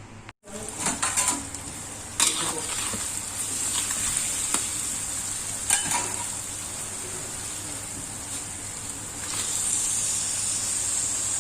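Food frying in hot oil in a pan, sizzling steadily. A spatula knocks and scrapes against the pan several times as it is stirred.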